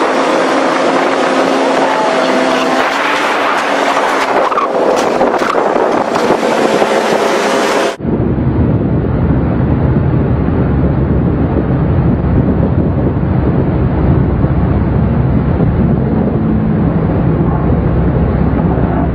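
Several sport-bike engines running and revving at speed, their pitch shifting up and down. About eight seconds in, the sound cuts abruptly to a duller, muffled recording dominated by a heavy low rumble.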